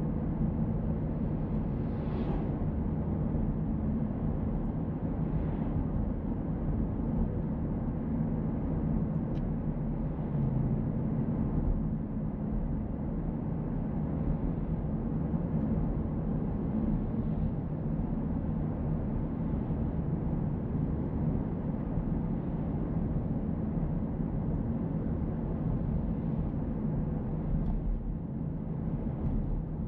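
A car driving along the road: a steady low rumble of engine and tyre noise, with brief swells of higher noise about two and five seconds in.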